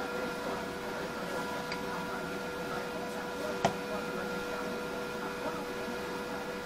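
Steady electrical hum with light handling noise, and one sharp click about three and a half seconds in as the cap comes off an aerosol can.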